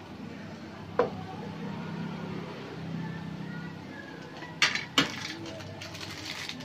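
Small medical items clinking against a stainless steel instrument tray as an injection is prepared: one click about a second in, then two sharper clicks in quick succession near the middle.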